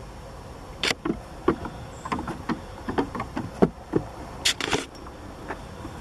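Irregular series of knocks and taps of goat hooves on a wooden play platform, the loudest about three and a half seconds in, with two short rustling bursts, one about a second in and one near the end.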